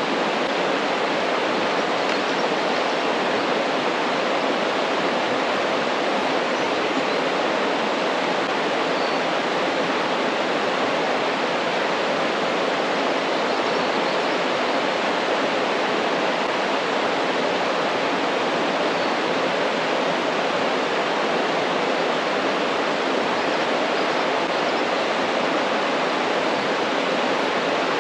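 Steady rushing of water pouring over small waterfalls, an even roar that neither rises nor falls.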